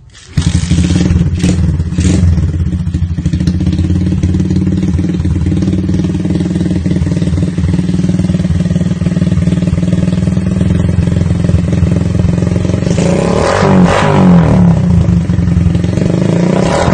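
Motorcycle engine breathing through a replica aftermarket exhaust, cutting in abruptly with a couple of quick blips, then idling steadily. It is revved up and back down once about 13 seconds in, and revved again at the end.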